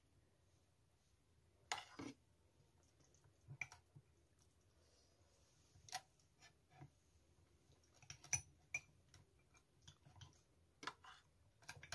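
Quiet eating sounds: scattered soft clicks and taps of metal spoons against small glass bowls and plates, a second or two apart.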